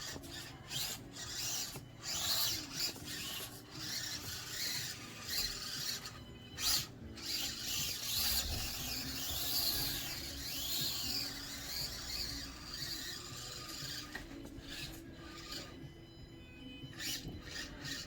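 Axial SCX24 micro crawler driving over obstacles: its tyres and chassis scrape and rub with irregular clicks and knocks. The small electric motor and gears give a faint whine that rises and falls in pitch with the throttle around the middle.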